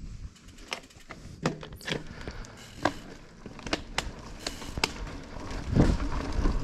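Mountain bike on a forest trail: scattered, irregular sharp clicks and crackles from the bike and tyres over the ground, with a low rumble swelling about six seconds in.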